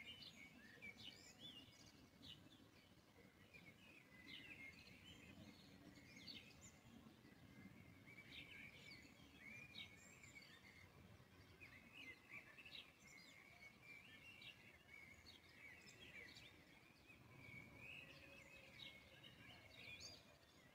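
Faint birds chirping, many short chirps one after another, over a faint background hum.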